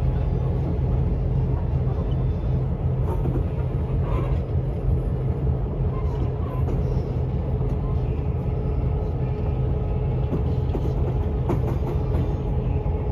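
A vehicle's engine running steadily with a constant low rumble and an unchanging hum.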